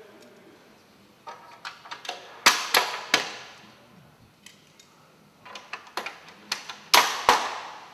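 Hard plastic sections of a Langmatz manhole head frame ring knocking and clicking together as they are fitted. Two rounds of light clicks, each followed by loud echoing knocks: three about two and a half to three seconds in, two more near the end.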